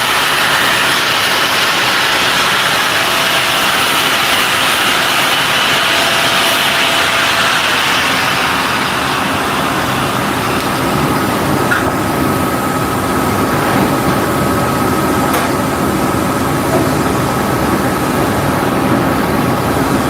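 TIG welding arc burning steadily as a bead is laid, a continuous hiss and buzz. The sound shifts about eight seconds in, and a steady thin tone joins it from about eleven seconds.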